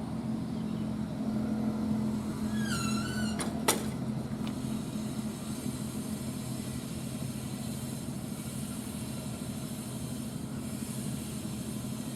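CC 201 diesel locomotive running with a steady low hum, slightly louder in the first few seconds. Just under three seconds in there is a short wavering squeal, then a single sharp click.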